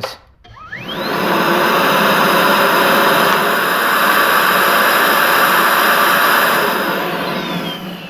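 Milwaukee M18 FUEL 3-in-1 backpack vacuum with a crevice tool on its hose, switched on about half a second in: the brushless motor's whine rises quickly into a loud, steady rush of air through the crevice tool. That rush is suction noise, mostly from the air travelling through the tool rather than from the motor. Near the end the vacuum is switched off and the whine falls away.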